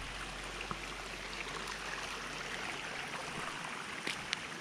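Steady rushing hiss of rain falling and a rocky stream flowing, with a few light ticks near the end.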